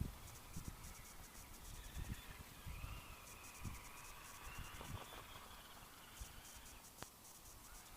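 Faint whine of a brushless RC rock crawler's electric motor, rising and falling in pitch as the throttle changes while it digs through snow. Low thuds and a single sharp click near the end.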